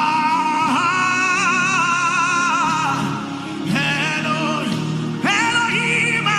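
Worship music: a voice sings long held notes with vibrato in three phrases, the first about three seconds long and the others shorter, over a steady sustained accompaniment.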